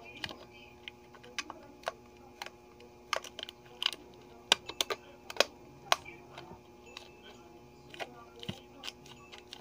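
Irregular sharp clicks and taps of fingernails and a squishy ball against a hard plastic storage box, sounding like typing, with the loudest clicks in a cluster around the middle.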